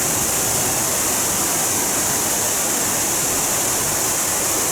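Waterfall rushing steadily: the constant roar of falling water at the base of Big Bradley Falls.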